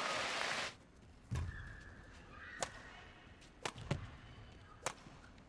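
Badminton rally: sharp racket strikes on the shuttlecock roughly once a second, with a shoe squeaking on the court between the first two. It opens with a loud burst of crowd noise that cuts off suddenly under a second in.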